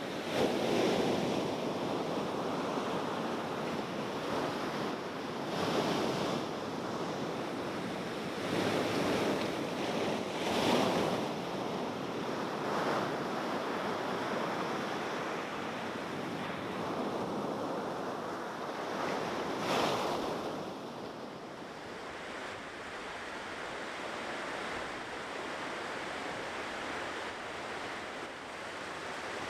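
Ocean surf washing on the shore: waves break at irregular intervals every few seconds, the last strong one about two-thirds through, then a softer, steadier wash.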